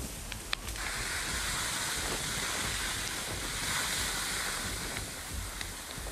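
Wildfire burning through brush and trees: a steady rushing noise with sharp crackles and pops, several of them in the first second.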